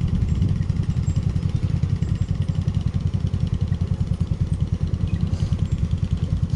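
Vespa scooter's single-cylinder engine running steadily with an even pulsing beat while it is ridden slowly.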